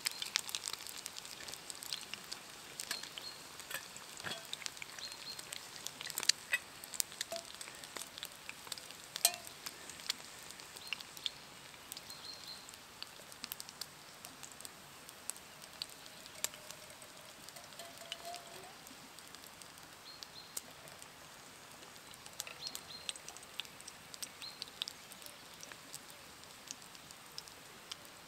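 Meat and an egg frying on a grill over an open wood fire: a soft steady sizzle with many sharp crackles and pops scattered throughout.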